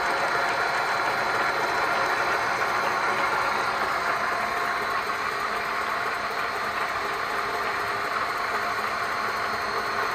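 Mikron 102-05 gear hobbing machine running, its hob cutting a helical gear in an aluminium blank without coolant: a steady mechanical whir with a few faint steady tones.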